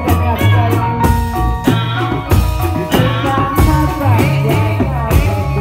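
Lively Indonesian street-performance music for a reog dance: drums keeping a steady beat over a bass line, with a melody of gliding notes and some singing.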